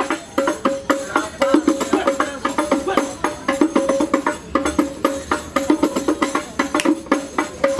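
Music with quick, steady percussion: tambourine-like jingles and knocking strokes under short repeated pitched notes.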